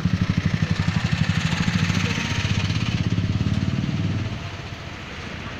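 A small motor-vehicle engine idling close by with a rapid, even chug, dropping away about four seconds in to a fainter street hum.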